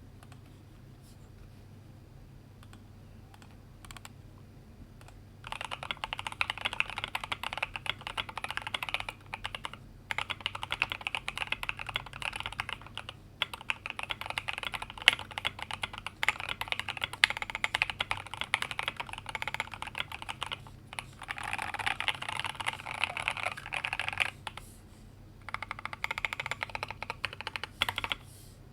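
Fast typing on a mechanical keyboard with lubed, filmed OP Black R2 switches, stock 65 g springs and MT3-profile PBT keycaps in an aluminium Tokyo60 case. After a few quiet seconds with a stray click, the keystrokes start about five seconds in and come in quick runs of a few seconds, with short pauses between them.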